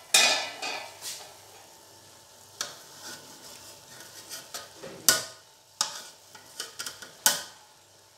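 Metal spoon stirring and scooping cooked rice in a metal pot, with a series of sharp scrapes and clinks against the pot; the loudest clank comes just after the start.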